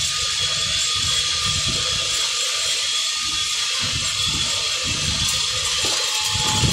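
Tablet inspection belt conveyor running: a steady machine hiss with a few faint steady whining tones, over an uneven low rumble.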